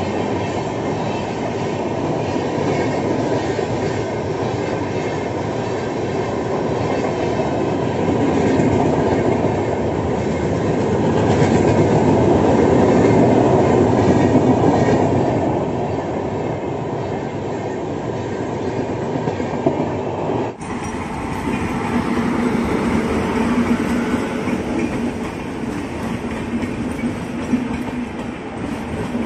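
LHB passenger coaches passing at full speed: a steady, loud rumble of wheels on rail with clicking over the rail joints, loudest a little before the middle. About two-thirds of the way through a cut brings in a second passing train with the same rolling rumble.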